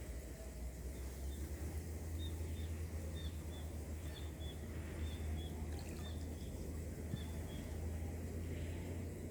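A small bird giving a run of short high chirps, two or three a second, over a steady low rumble.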